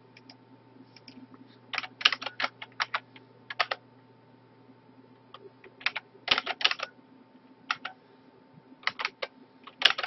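Computer keyboard typing in several short, irregular bursts of keystrokes with pauses between them, over a faint steady hum.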